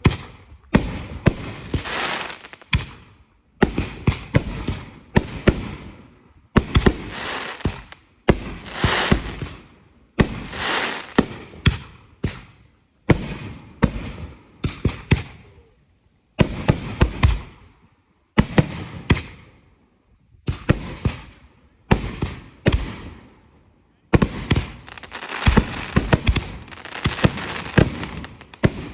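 Consumer fireworks going off in quick succession: a sharp bang about every one and a half to two seconds, each followed by a second or two of crackling.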